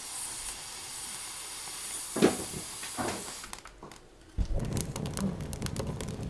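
Air blown through a bamboo fire-blowing tube (hifukidake) into the firebox of a clay kamado stove, a steady hiss broken briefly twice. Then, after a short quiet, the kindled wood fire crackling in the firebox with many sharp pops.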